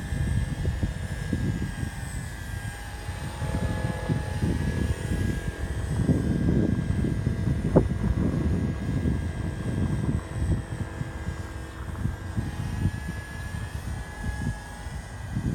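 Align T-Rex 150X micro electric RC helicopter hovering, its motor and rotor giving a steady high whine that shifts slightly in pitch, over gusty wind buffeting the microphone.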